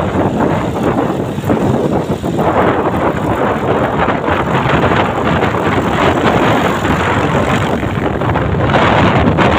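Wind rushing over the microphone from a moving Hero Splendor+ motorcycle, a steady loud rush of road and wind noise with the bike running underneath.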